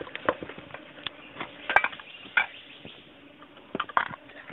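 Metal cooking pots, lids and a mess tin clinking and knocking as they are handled and set down, a handful of sharp clinks with the loudest a little under two seconds in.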